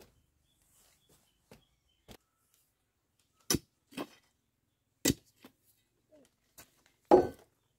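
A metal digging bar jabbed into dry, packed earth to dig a hole. There are a few sharp thuds about a second apart, starting about three and a half seconds in, then a louder, longer one near the end.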